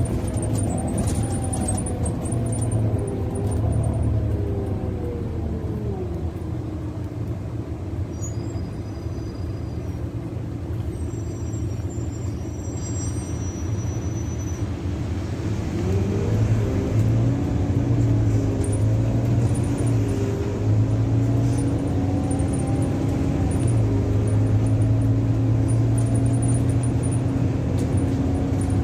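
Volvo Wrightbus Gemini double-decker bus heard from the upper deck on the move: the engine's pitch falls as the bus slows, stays lower and quieter for several seconds, then rises again about halfway through as it pulls away, settling into a steady drone.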